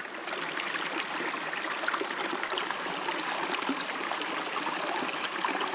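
Small mountain stream running steadily over rocks, a continuous babble of water.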